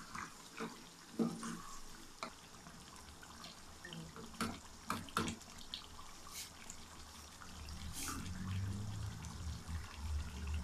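Beef trotters bubbling in masala and oil in a wok on the stove, with scattered pops and spits from the hot oil as the masala is cooked down. A spatula scrapes the pan at the start, and a low hum builds through the second half.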